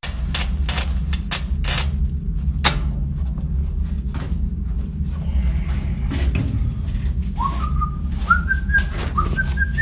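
Someone whistling a short tune over a steady low machinery hum, which is broken by a run of sharp clicks and knocks in the first few seconds.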